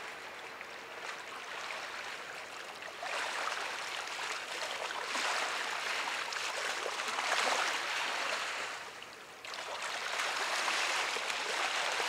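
Steady rushing hiss of waterside ambience, swelling and easing. It steps up suddenly about three seconds in and again about nine and a half seconds in.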